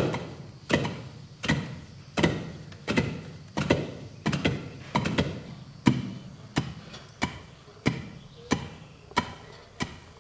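Wooden pestles pounding rice in hollowed-log wooden mortars to hull it by hand: a steady rhythm of heavy thuds about every three-quarters of a second, some strokes doubled where two pestles land close together.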